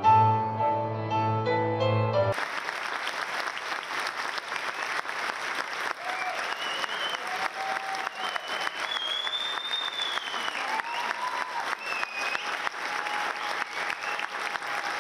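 Soft piano music that breaks off abruptly about two seconds in, followed by a large crowd applauding steadily, with a few voices calling out over the clapping.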